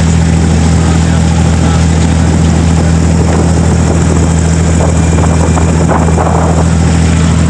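Diesel engine of an abra, a wooden Dubai Creek water taxi, running steadily under way: a loud, even low hum.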